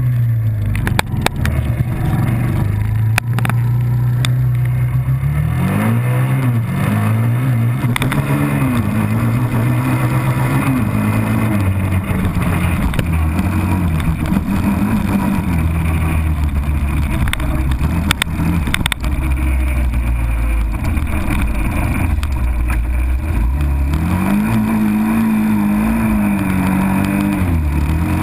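Suzuki Z400 ATV's single-cylinder four-stroke engine under hard riding, its revs rising and falling several times as the throttle is worked, with a few sharp knocks from the ride.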